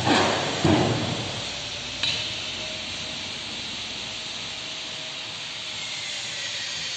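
A hand pallet jack clanking and rumbling as it is pushed onto the steel ramp of a pallet wrapper's weighing platform. There are two heavy metallic rumbles in the first second and a sharp clink about two seconds in, then only a steady low background hiss.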